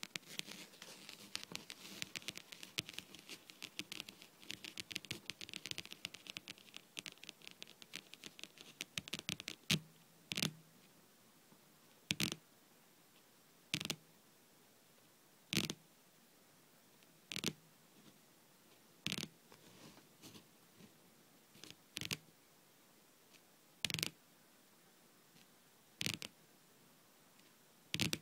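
Long painted fingernails tapping and scratching rapidly on a tabletop for about nine seconds, then slowing to single short taps about every two seconds.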